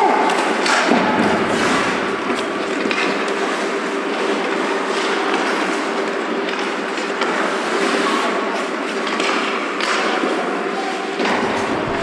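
Ice skate blades scraping and carving on rink ice, with scattered sharp knocks, over a steady hum of the rink's machinery.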